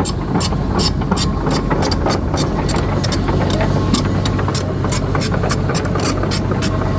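Crawler excavator's diesel engine running steadily while its steel track chain clicks about three times a second as the machine travels.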